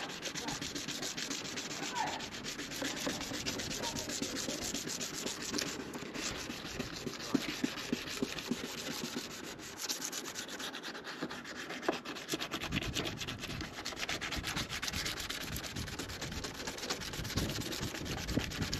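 Drill-driven number one sanding disc wet-sanding a plastic headlight lens, a continuous gritty rubbing. It is the first abrasive stage, cutting away the yellowed, oxidised surface of the lens.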